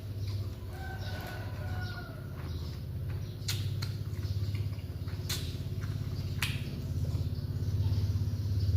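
Close-up eating sounds: chewing, with three sharp mouth clicks or smacks, over a steady low hum.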